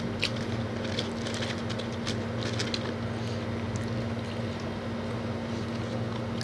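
A steady low electrical hum, with soft chewing, mouth clicks and light handling of fried chicken and a plastic sauce cup over it, mostly in the first three seconds.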